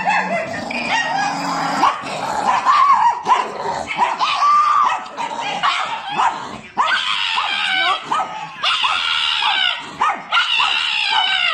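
A pug barking and yipping in a quick run of short pitched calls that rise and fall.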